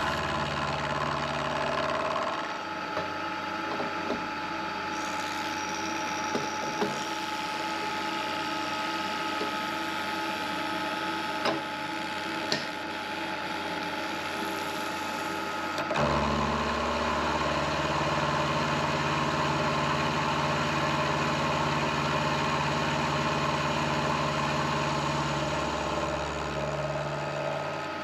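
Milling machine running, its end mill cutting a T-shaped step along a metal block held in a vise. A deeper hum drops out about two seconds in and comes back about halfway through.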